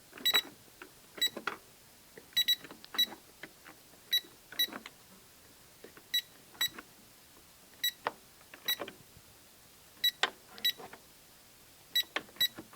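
Electronic cash register keys being pressed one after another at an uneven pace, each press giving a short high beep with a plastic key clack, about seventeen presses in all.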